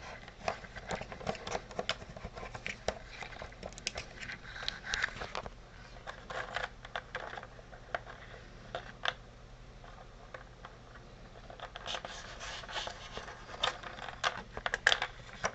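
Handling noise of irregular small clicks, scratches and scrapes as a retract unit and its air lines are fitted into a model plane's wing, in clusters with a quieter stretch in the middle.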